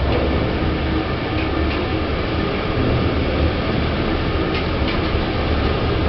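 A Schindler lift car travelling in its shaft: a steady low rumble and rattle of the car in motion.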